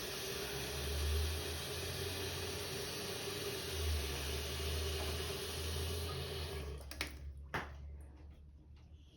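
Toilet tank refilling through a new Fluidmaster 400A fill valve: a steady rush of water with a faint whistle, cutting off abruptly about seven seconds in as the valve shuts. Two short knocks follow.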